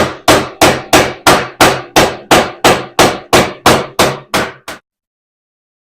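Steady hammer blows on the steel frame of a Yamaha Grizzly 660 ATV, about three sharp strikes a second, each ringing briefly, as a welded repair piece is tapped down into place. About fifteen strikes, stopping near the end.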